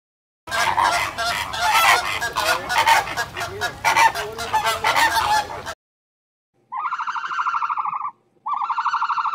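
A flock of geese honking, many calls overlapping one another. After a short silence come two long, buzzy calls, one after the other.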